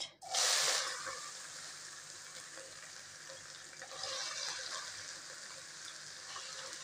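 Chopped green bell pepper tipped into hot oil in a pan: a loud sizzle as it hits the oil, settling into steady frying. A second, smaller surge about four seconds in as more pepper drops in.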